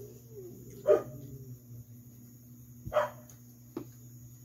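A dog barking: two short single barks, about two seconds apart.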